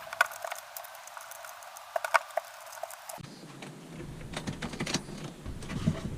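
Scattered light clicks and taps from a screwdriver working the microwave's mounting screws. About three seconds in the sound turns abruptly fuller, with a dull rumble under further clicks.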